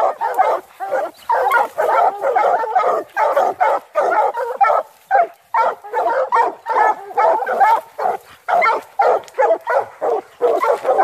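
A pack of coonhounds barking and baying together up a tree, many overlapping calls with hardly a pause: the tree bark hounds give when they have game treed.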